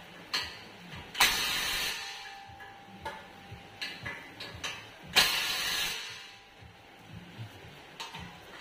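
Cordless power tool running a socket to tighten bolts on a steel frame, in two short bursts of about a second each, about a second in and again about five seconds in. Small metallic clicks and knocks come in between as the socket is set on the next bolt.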